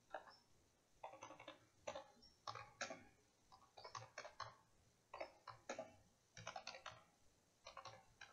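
Faint clicking of computer keyboard keys being typed, in short runs of keystrokes with brief pauses between them.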